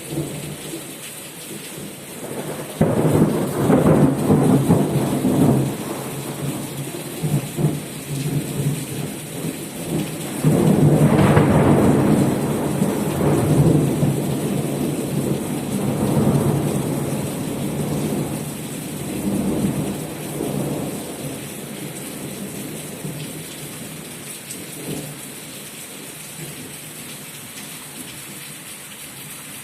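Thunder rumbling over steady rain. Two long, loud peals about three and ten seconds in, then weaker rolls that fade away.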